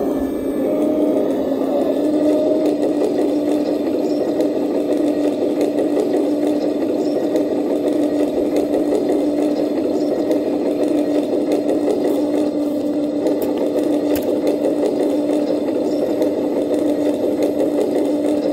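A small motor running steadily with a constant whine and a rapid buzz underneath, holding the same pitch throughout.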